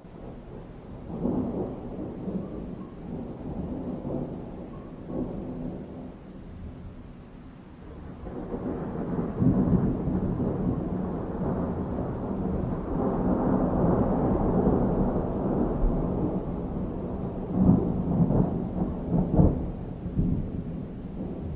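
Thunder rumbling from a moderate thunderstorm. A first roll about a second in fades away, then a longer, louder rolling rumble builds from about eight seconds, with two sharper cracks near the end.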